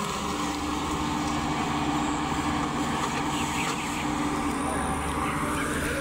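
Combine harvester running steadily with its unloading auger discharging grain into a truck; a steady hum comes in just after the start.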